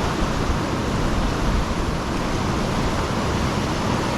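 Steady rushing roar of high floodwater pouring through a river spillway.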